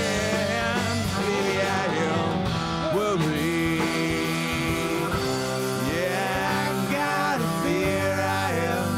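Live rock band playing an instrumental passage: electric guitars, bass guitar and drums, with a bowed electric cello playing a melody that slides between notes.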